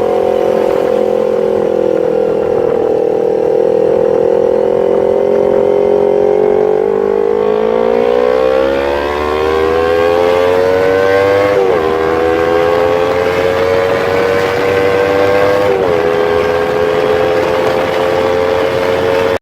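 Yamaha MT-25's 250 cc parallel-twin engine running at high revs through a CLD X Monster aftermarket exhaust, under way. The engine note climbs in pitch from about seven seconds in, with two brief dips, near twelve and sixteen seconds, that are typical of quick upshifts.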